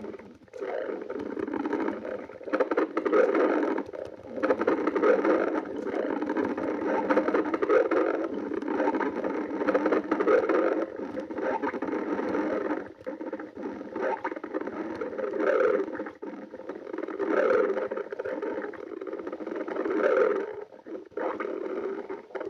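Human stomach growling and gurgling from hunger: a continuous low rumble that swells and fades every couple of seconds.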